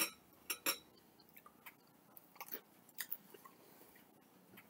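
People chewing homemade bread, with a scattering of short clicks and crackles, the loudest right at the start.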